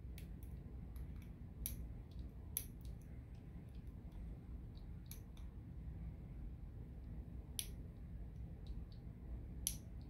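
Faint, irregular metallic clicks and ticks of a lock pick working the pins of an Assa Twin Exclusive lock cylinder against tension, with a few sharper clicks scattered through, over a low steady hum.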